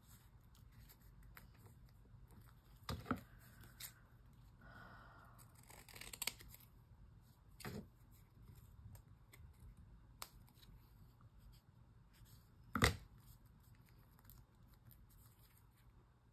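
Scissors cutting paper, with rustling as the paper is handled. A few sharp knocks sound in between, the loudest about three-quarters of the way through.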